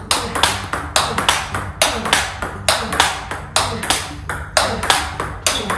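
Table tennis rally: the ball clicks sharply off rubber-covered rackets and bounces on the table in a quick, even rhythm of about three impacts a second, as forehand drives are blocked back.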